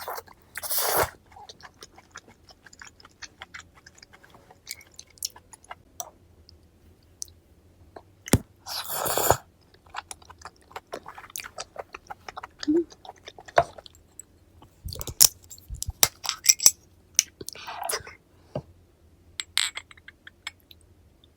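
Close-miked chewing of raw flounder sashimi: a run of short wet clicks from the mouth, broken twice by a longer noisy spell, near the start and about eight seconds in.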